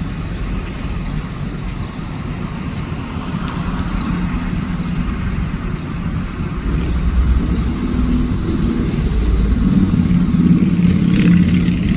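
Street traffic: a motor vehicle's engine running nearby, a low rumble that grows louder over the second half.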